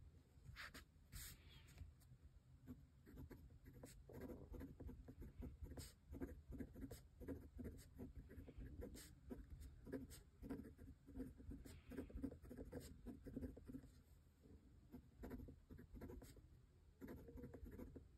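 Fine nib of a Pilot Prera fountain pen scratching faintly across paper in many short strokes, with brief pauses between words. The nib has a little feedback and writes without skipping.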